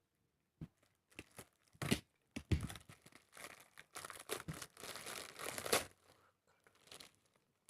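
Smartwatch packaging being opened by hand: wrapping torn and crinkled, with handling clicks. It starts with scattered clicks and builds to a denser spell of tearing and crinkling before dying down.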